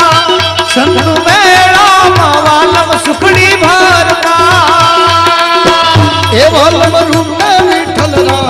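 Gujarati devotional folk music: an ornamented melody that glides and bends in pitch over a steady tabla rhythm.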